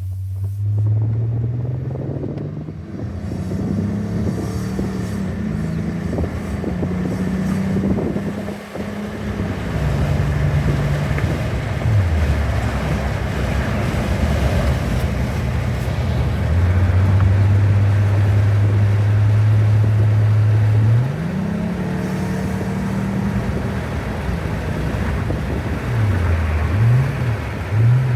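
2000 Honda Accord's 3.0-litre V6 engine heard while the car drives and accelerates. Its pitch climbs and drops back several times as it shifts up, holds steady in the middle, then climbs again near the end. Over this runs the whirring noise on acceleration that the owner is trying to diagnose, with a loss of power above about 3,500 rpm and no check-engine light.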